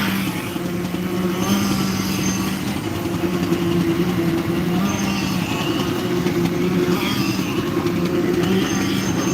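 Heavy diesel engine of concrete-pouring machinery running steadily at a constant speed, a low even hum that barely changes.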